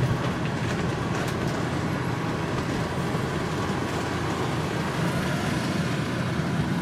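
Steady engine and road noise of a Citroën van driving slowly, heard from inside the cab: an even low rumble with no revving or sudden sounds.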